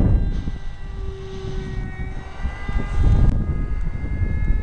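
Electric brushless motor and propeller of a foam RC F-22 jet running at speed in flight: a steady high whine of several tones, with wind buffeting the microphone.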